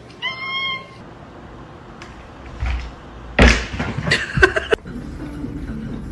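A short, high-pitched cry, then about three and a half seconds in a loud bang followed by a second of rattling clatter.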